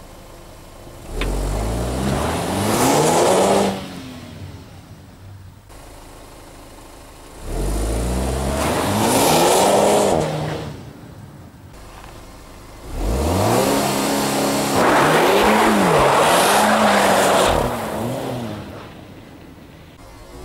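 Audi A4 2.0 TFSI quattro's turbocharged four-cylinder engine pulling away hard from a standstill on snow with ESP and traction control switched off, three times: each run the revs climb steeply, and the third run lasts longer, the revs rising and falling several times. Between runs the engine idles quietly.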